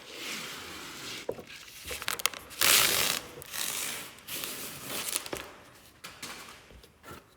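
Several separate bursts of crinkling and rustling, the loudest about three seconds in.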